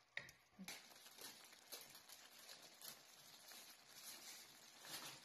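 Faint crackling hiss of a minced-meat tomato sauce simmering in a frying pan as a wooden spatula stirs and scrapes through it, with small soft taps. A single click comes just at the start.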